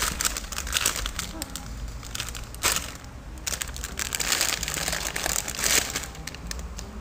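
Plastic packaging of a squishy toy crinkling and crackling as it is handled close to the microphone, with a few sharper crackles along the way.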